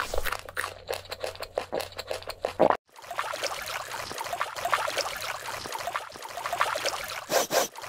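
Stop-motion ASMR foley: a quick run of crisp clicks and crunches as a metal spoon scoops plastic toy-brick 'food' from a bowl. It breaks off about three seconds in and gives way to continuous wet squelching and sloshing of eels wriggling through shallow mud.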